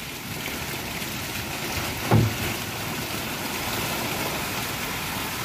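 Steady hiss of wind and sea on an open fishing-boat deck, with one dull thump about two seconds in.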